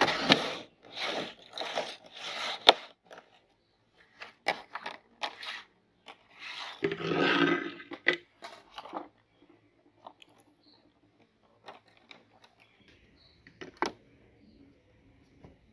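A clear plastic tub and a plate being handled on a table. There are several crinkling, scraping bursts in the first three seconds and a longer scrape a little under halfway through, then sparse light clicks and taps as square cookies are laid on the plate.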